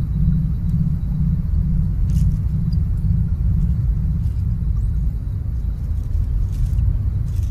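A steady, deep low rumble, with a pulsing low hum on top at about three beats a second that fades out about four seconds in.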